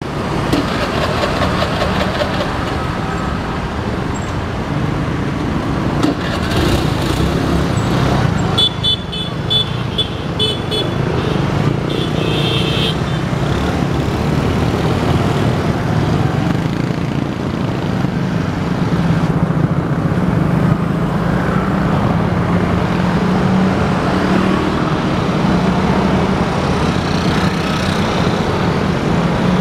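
Road traffic of motorcycles and cars running over a railway level crossing, a steady engine hum throughout. About a third of the way in come a run of short high beeps and then a brief horn toot.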